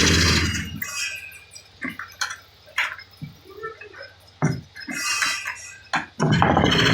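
A power woodworking tool's motor winds down in the first second, then light knocks and clatter of wood and tools being handled, and the motor starts up again about six seconds in.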